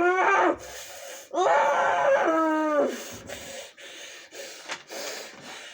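Whining vocal sounds: a short one at the start, then a long drawn-out whine about a second and a half in that sags down in pitch at its end.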